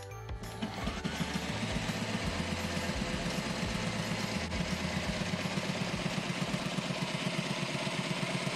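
Sailrite sewing machine stitching a hem in sail-cover canvas: a fast, steady run of needle strokes that starts about half a second in.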